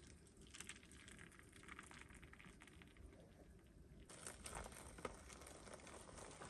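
Faint trickle of hot water poured from a kettle into a plastic measuring cup, then, about four seconds in, a louder pour as the cup is emptied into a freeze-dried meal pouch.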